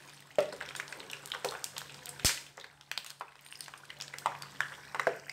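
Steel spider strainer and perforated ladle clicking and scraping against each other and the kadai as fried kurkure sticks are lifted out of hot oil, over a faint sizzle. The taps come irregularly, the sharpest one about two seconds in.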